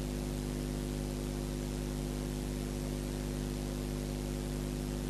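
A steady hum made of several even tones over a constant hiss, unchanging throughout.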